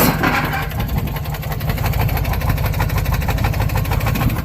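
Lexus engine idling with a rapid, even knocking throughout: rod knock from a worn connecting-rod bearing, yet the engine keeps running.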